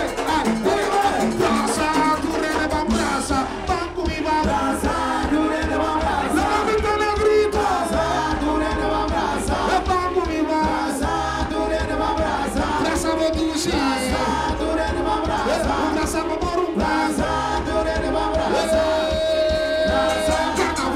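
Loud carnival music, with a singer over a driving beat of drums and percussion.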